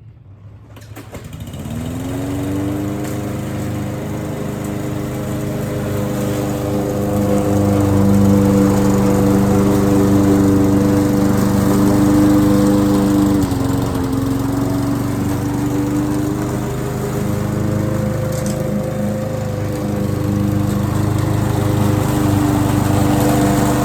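Gasoline lawn mower engine starting about a second in, rising in pitch as it comes up to speed, then running steadily, with a brief dip in pitch about halfway through.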